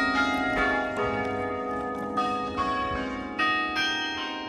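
Clock-tower bells chiming a tune: a sequence of struck bell notes at changing pitches, each ringing on and overlapping the next.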